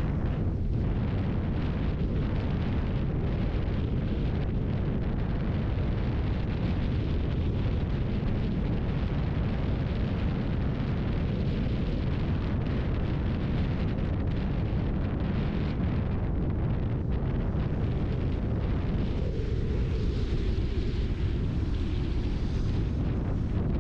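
Wind and road noise from a car driving on wet roads: a steady, deep rushing noise with no breaks, heaviest in the low end.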